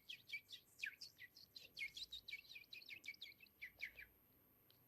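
A woman imitating a flock of chirping birds with her mouth: a fast run of short, high chirps, each sliding down in pitch, several a second, breaking off just before the end.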